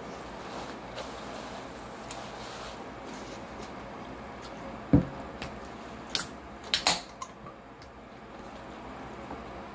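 Handling and eating noises at a table: one dull thump about halfway through, then a short cluster of sharp crackling clicks a second or two later, over a low steady room hiss.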